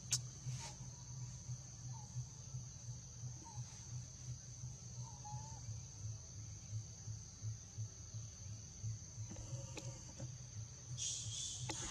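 Steady high-pitched insect chirring, with a low pulsing hum underneath and a few faint short calls. There is a sharp click right at the start, and a louder hiss comes in near the end.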